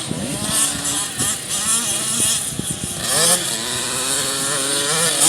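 Several small youth motocross dirt bikes running on the track at once, their engine pitch rising and falling as riders accelerate and shift, with one bike climbing sharply in pitch about three seconds in.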